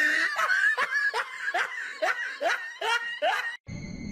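A person laughing in a quick run of about a dozen short, rising 'ha' pulses, about four a second. It breaks off near the end, giving way to a steady high whine.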